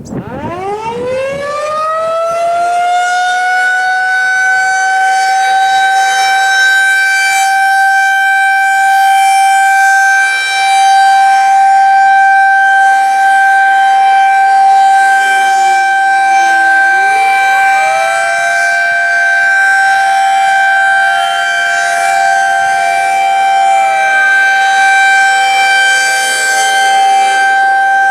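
Federal Signal 2001-SRN electromechanical outdoor warning siren winding up over the first couple of seconds, then holding a steady, unusually high-pitched alert tone. A fainter, lower-pitched siren in the background sinks and climbs again about halfway through, then sinks again near the end.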